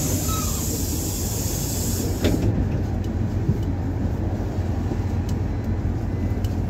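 Cabin sound of a PAZ-320302 city bus: the engine runs with a steady low rumble. A high hiss fades out about two and a half seconds in, and there are a few light rattles.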